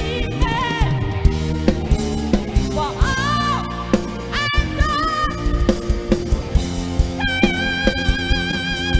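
A song with a singing voice over a steady beat of drums, bass and guitar, played loud through a large concert PA system of line-array speakers and subwoofers.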